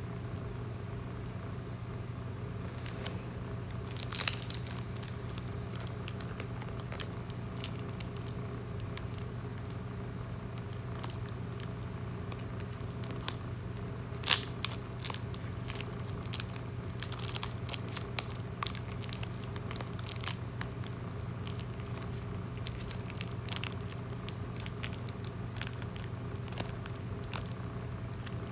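Pokémon card booster pack being opened and handled: foil wrapper crinkling and tearing, with scattered crackles, the sharpest about four seconds in and again about fourteen seconds in.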